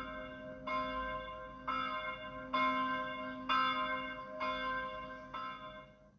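A single church bell tolling slowly, about one stroke a second, each stroke ringing on into the next, fading away near the end.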